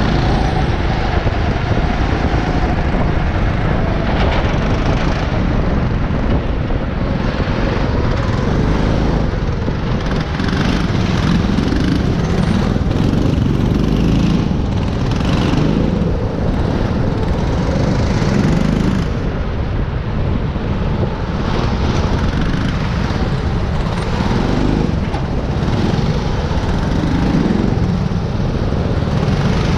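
Go-kart's small gasoline engine running hard, heard from the driver's seat, its note rising and falling as the throttle opens and closes through the corners, over a constant rush of wind on the microphone. Other karts' engines run close by.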